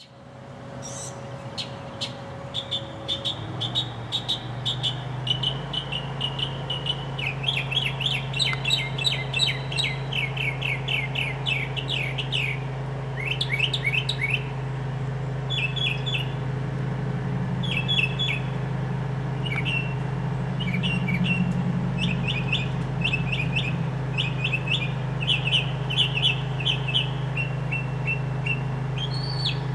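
Northern mockingbird singing: a long run of varied high phrases, each note shape repeated several times in quick succession, over a steady low hum.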